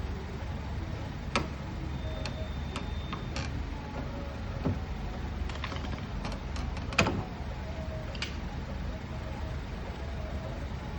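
Scattered sharp clicks and knocks, about a dozen, from hand tools and car door lock parts being worked. The loudest knock comes about seven seconds in, and all of it sits over a steady low rumble.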